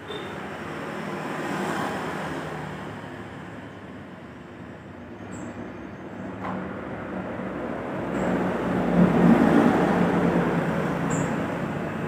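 Road traffic passing on the street: a steady rush of vehicles that swells as one goes by early on and louder again about two-thirds of the way through.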